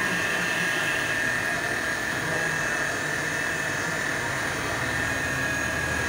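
Electric car polisher with a foam pad, buffing wax into car paint: a steady motor whine that holds at one pitch.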